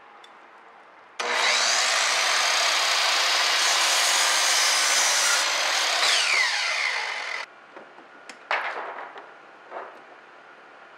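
Electric miter saw starting abruptly about a second in and cutting through a wooden board. Its motor then winds down with a falling whine, followed by a few knocks of wood being handled.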